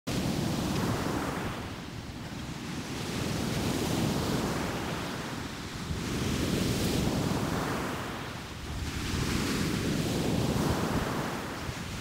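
Ocean surf breaking on a sandy beach: a steady rushing wash that swells and fades about every three seconds, with a low rumble of wind on the microphone.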